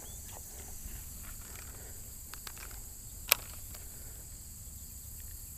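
Steady high-pitched hum of insects around a summer pond, with a faint low rumble underneath. A single sharp click about three seconds in, and a few faint ticks.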